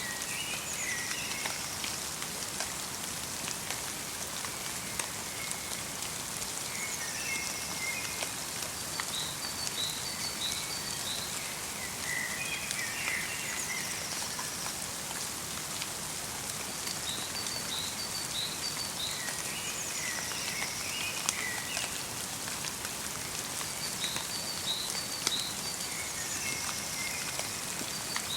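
Light rain falling steadily in a forest, a fine hiss with small drops ticking. Over it, small songbirds sing short, high chirping phrases that repeat every several seconds.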